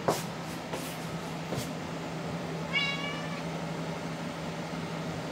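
A house cat meows once, a short call about three seconds in: the lonely cry of a cat calling for its owners. A few soft taps come before it, over a steady low hum.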